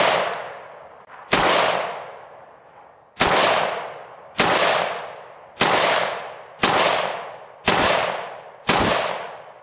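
AR-15 rifle fitted with a Jerry Miculek MIC-100 muzzle brake firing semi-automatically, about eight shots at roughly one a second. Each report trails off over about a second.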